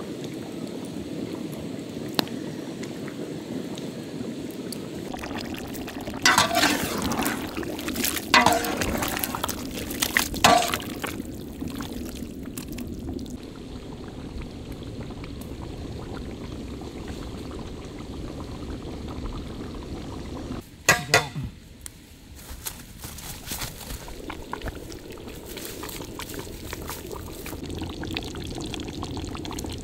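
Brinjal curry gravy bubbling in a cooking pot, with a metal ladle clinking against the pot several times in quick succession a few seconds in, and twice more later on.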